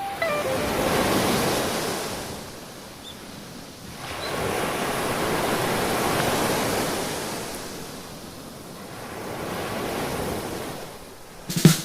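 Ocean surf: waves breaking and washing in, a rushing noise that swells and fades three times.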